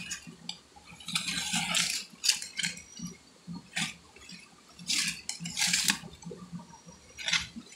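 Dry leaves being rustled and crunched by hand in several short bursts as they are pushed aside among rocks.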